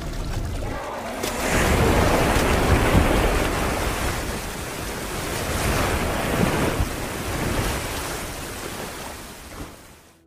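Ocean waves surging, a rushing noise that swells about a second in and again a few seconds later, then fades out near the end.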